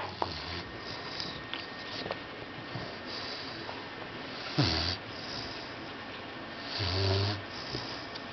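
Boxer puppy snoring in its sleep: a short, sharp snort about halfway through and a longer, deep snore near the end, with soft breathing between.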